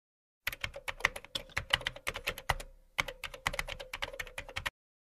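Rapid typing on a computer keyboard, a quick run of key clicks with a brief pause about halfway through.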